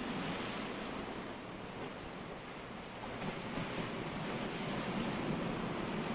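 Steady rushing noise with no tones or distinct clicks. It eases a little about two seconds in and swells back about a second later.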